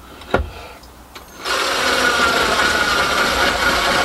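Ryobi cordless drill running steadily with a self-centring drill bit, starting about a second and a half in after a single click.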